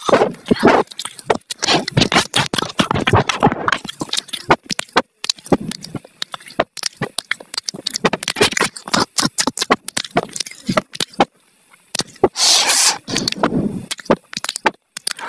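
A dog crunching and chewing raw green vegetable slices, a dense run of wet, crisp bites and jaw clicks with a short lull about eleven seconds in. Near the end it licks the empty glass plate.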